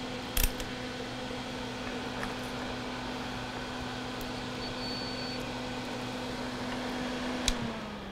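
A steady electric motor hum, like a small fan, that drops in pitch and fades near the end. About halfway a brief faint high beep sounds, a multimeter's continuity beep.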